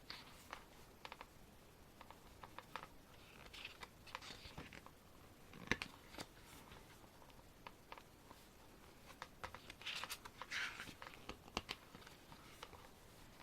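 Pages of a photo book being turned and handled: two soft paper swishes, about four and ten seconds in, among scattered light taps and clicks.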